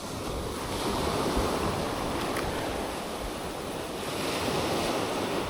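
Ocean surf breaking and washing up the beach, a steady rush that swells twice, with some wind buffeting the microphone.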